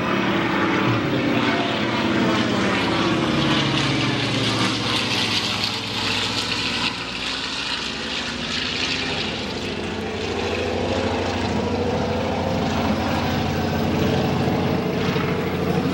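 Single-engine floatplane flying past, its engine and propeller making a loud, steady drone whose pitch slowly shifts as it passes.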